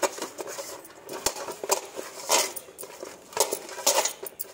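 A bare hand rubbing and scraping across the bottom of a metal basin, gathering up crumbs of dough, in a series of irregular swishes. The loudest strokes come about halfway through and near the end.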